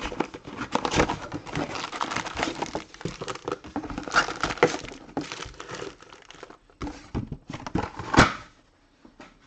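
Plastic-wrapped trading card packs crinkling and rustling as they are pulled out of a hobby box and laid down on a table, with a sharper knock about eight seconds in.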